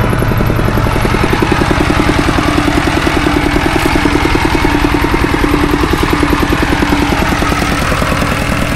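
Small two-wheel walking tractor (iron buffalo) with a single-cylinder diesel engine, running steadily with a rapid, even chugging beat.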